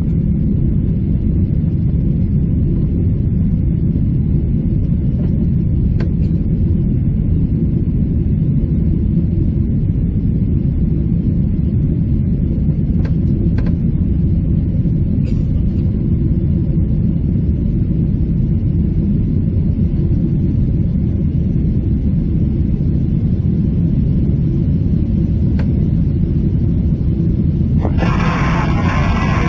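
Steady low rumble of engine and airflow noise in the cabin of a Boeing 777-300 airliner in flight, with a few faint clicks. Near the end a brighter hiss comes in on top.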